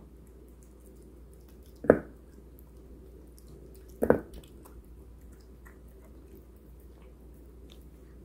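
Bengal cat eating from a stainless steel bowl: soft wet chewing and small licking clicks. Two louder thumps come about two seconds apart, near two and four seconds in.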